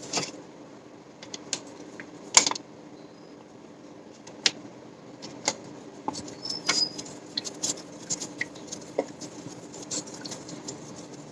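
A stirring utensil clicking, tapping and scraping against a bowl while slime powder is mixed into water, in irregular short knocks, the loudest about two and a half seconds in.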